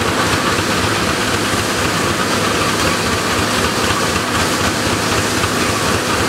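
Belt-driven threshing separators running at full speed while sheaves are fed in: a steady, loud mechanical clatter over a constant hum, with engine noise from the belt power mixed in.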